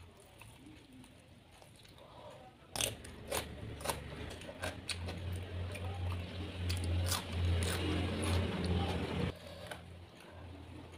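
Close-miked eating sounds: wet, sticky biting and chewing of sauce-coated fried chicken, with many mouth clicks and smacks. It is quiet for the first few seconds; the chewing starts about three seconds in and eases off near the end.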